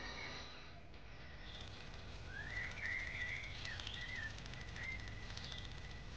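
Faint, wavering bird whistles and chirps over a low natural hiss, starting about a second and a half in.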